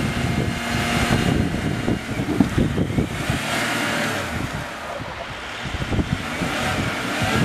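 Land Rover Discovery 3's engine running and rising and falling in pitch as the 4x4 labours through deep, boggy mud, close to getting stuck.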